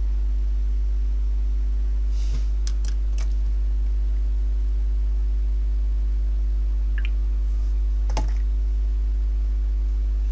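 Steady low electrical hum with a few light clicks: a small cluster about two to three seconds in and another about seven to eight seconds in.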